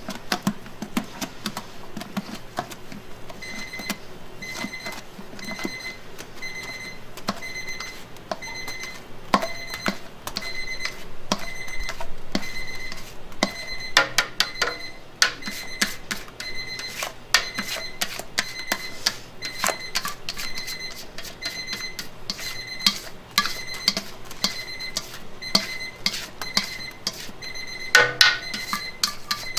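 Batter being scraped out of a stainless-steel bowl into a paper-lined baking tray: scattered sharp clicks and scrapes of the spatula against the bowl, with a burst of clattering knocks near the end. From a few seconds in, an electronic beeper sounds a steady series of short, same-pitched beeps.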